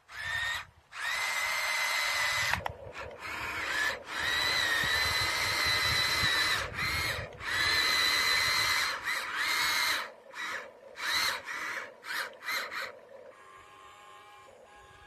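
Small electric motor and gearbox of a remote-control toy vehicle whining in bursts. Each run rises quickly to a steady high whine. Several long runs come first, then a string of short quick bursts, and it goes quiet about two seconds before the end.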